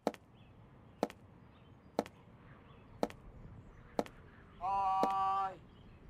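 Regular ticking, one sharp tick a second. About four and a half seconds in, a steady pitched tone sounds for about a second.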